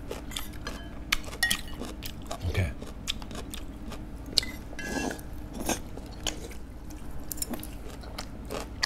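Close-up eating sounds of two people having samgyetang: sipping broth from spoons, chewing, and metal spoons and chopsticks clicking against the pots in short, irregular bursts, over a steady low hum.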